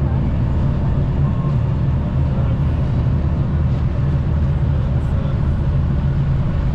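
Ship's engines running with a steady low drone.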